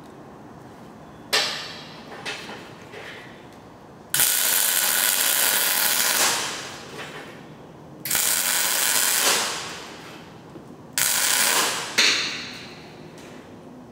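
Electric arc welding: a short tack about a second in, then three welds of about two, one and a half and one second, each starting abruptly, and another short tack near the end.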